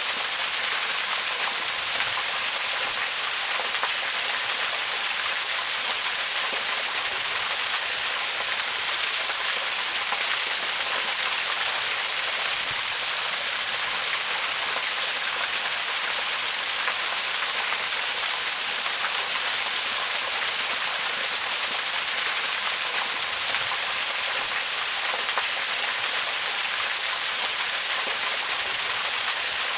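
Waterfall rushing in a steady, unbroken hiss of falling water, heavy in the high end and light in the low.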